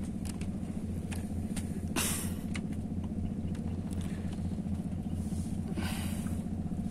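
A small engine running steadily, a low pulsing drone that holds throughout. Two short rushes of noise stand out over it, about two seconds in and near the end.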